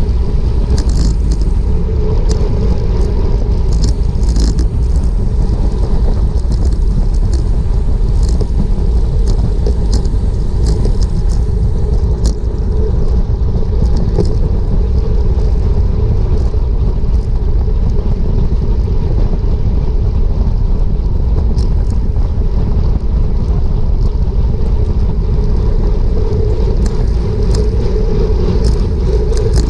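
Steady wind rush and rumble on a bike-mounted action camera's microphone as a road bike races along at about 28 mph, with faint ticks now and then.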